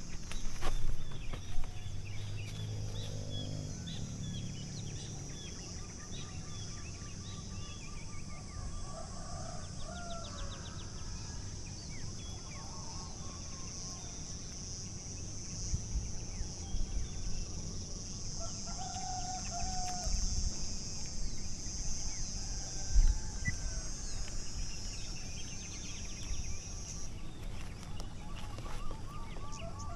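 Chickens clucking and roosters crowing now and then, over a steady high buzz that cuts off near the end and a low rumble. A couple of knocks at the start and a single thump a little after twenty seconds in.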